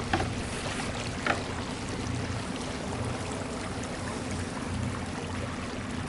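A boat's motor running steadily at low speed with a low, even hum, over the swish of water.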